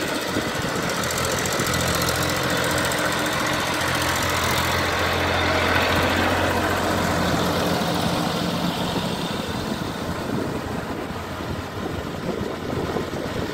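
Massey Ferguson 7250 DI tractor's three-cylinder diesel engine running steadily under load, pulling a rotavator through wet paddy mud. It grows louder as the tractor passes close, about six seconds in, and fades as it moves away.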